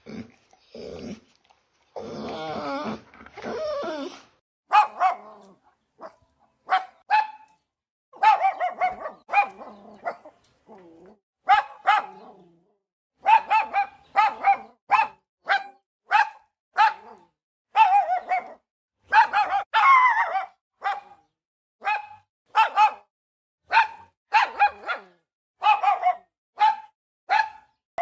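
A dog growls briefly, then barks over and over, short sharp high barks coming one or two a second.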